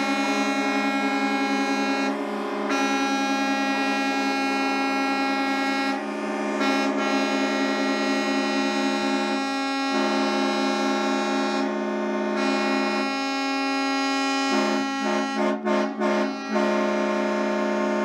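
Air horns on a group of heavy-duty trucks blowing together, their steady tones overlapping into a loud, held chord. The chord dips briefly a few times and breaks into several short blasts near the end.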